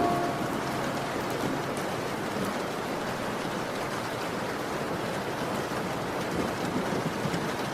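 Steady rain falling, an even hiss without a beat or tune.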